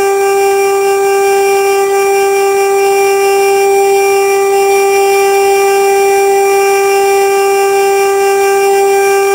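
Fire-station siren sounding one loud, steady tone held at a constant pitch: the alarm calling out the volunteer firefighters.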